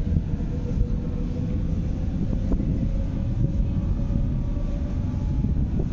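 Moscow metro train running: a steady low rumble with a motor whine that slowly rises in pitch.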